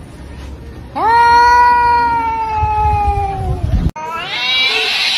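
Domestic cat's long, drawn-out yowl, held for nearly three seconds and sinking slowly in pitch: the warning yowl of a cat in a standoff with another cat. After a sudden break, a louder, higher yowl rises in pitch near the end.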